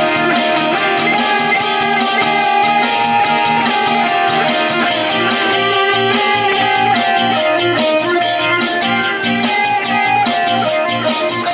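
Instrumental music led by guitars, playing steadily before any vocals come in.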